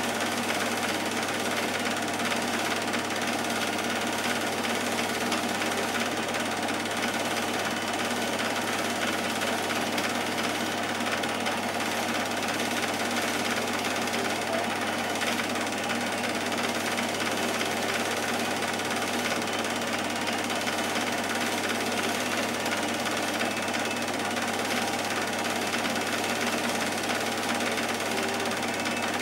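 Cine film projector running, its motor and film-advance mechanism making a steady, rapid mechanical clatter and hum.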